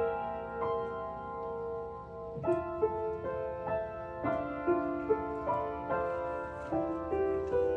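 Piano being played: a slow melody of held notes over sustained lower notes, with a new note struck about every half second from about two and a half seconds in.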